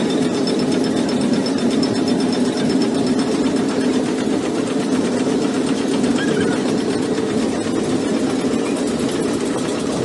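Glass bead-rolling machine running steadily: its grooved steel rollers turn and press a hot glass rod into beads, with a fast, even mechanical clatter over a constant motor hum.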